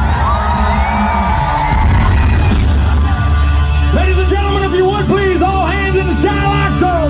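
Live hard rock band playing loudly, a sung lead vocal over heavy bass and guitars, recorded on a phone in the crowd.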